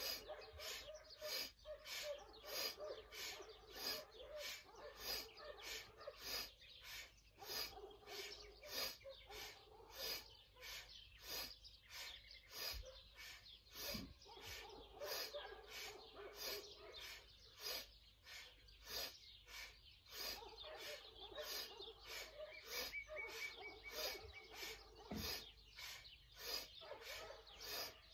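A person breathing quickly and rhythmically in and out, about two breaths a second, in time with seated spinal twists left and right.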